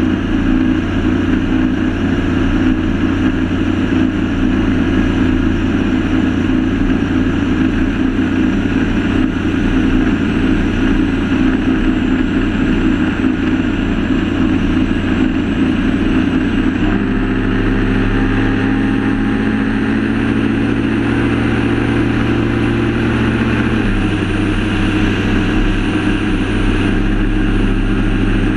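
Performance boat's Mercury Racing outboard running steadily at speed, its engine drone over rushing water and wind. The engine note changes about halfway through and again later.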